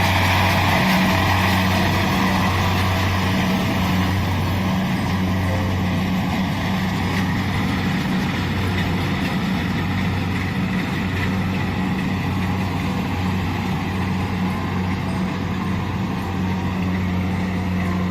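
Kubota DC-70 combine harvester's diesel engine running steadily with a constant low drone, growing slightly fainter.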